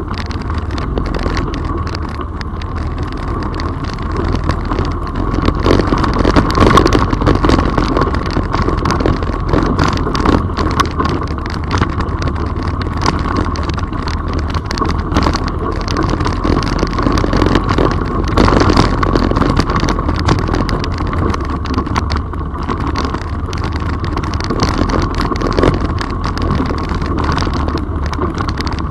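All-terrain vehicle (quad) engine running steadily while riding a rough, rocky trail, with frequent knocks and rattles from the bumps.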